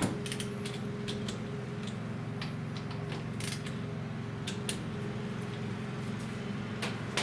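Scattered light clicks of a torque wrench being worked on a brake caliper bolt, with a sharper click near the end, over a steady low hum.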